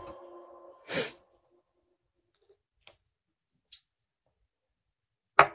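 Near silence as the audio drops out, broken by a short hiss about a second in, two faint ticks, and a sharp click just before the end.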